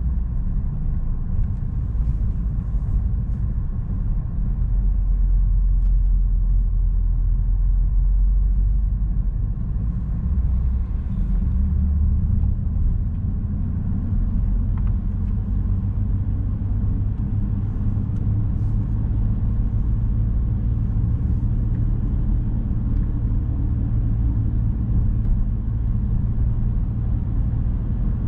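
Car driving: a steady low rumble of engine and tyre noise. The pitch of the rumble rises a little, a little under halfway through.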